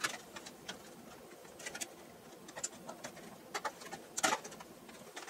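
Clear plastic blister packaging crinkling and clicking as it is prised open by hand to free a laptop RAM stick: scattered short crackles, the loudest about four seconds in.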